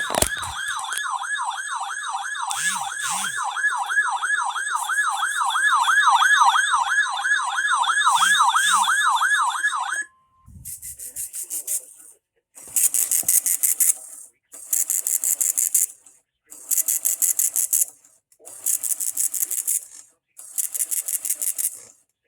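A warbling electronic siren tone, swinging up and down about three or four times a second, for about the first ten seconds. It cuts off and is followed by a run of harsh buzzing data bursts, each about a second and a half long with short gaps: the EAS SAME header tones that open a NOAA Weather Radio required weekly test.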